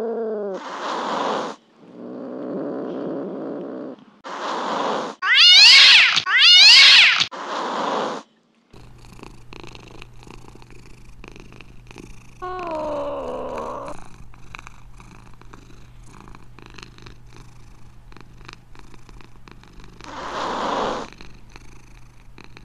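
Domestic cat vocalising: short hisses, a low rumble, then two loud, high, wavering yowls about five and six seconds in. Later, more quietly, one falling meow and another short hiss.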